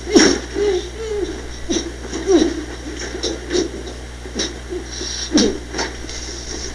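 Indistinct voices of several people with scattered laughter, in short, broken snatches.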